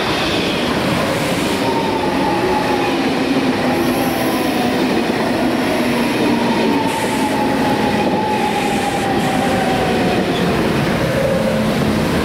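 ICE T electric high-speed train rolling past along the platform, its wheels and running gear making steady rail noise with a whine that falls slowly in pitch as the train slows to stop.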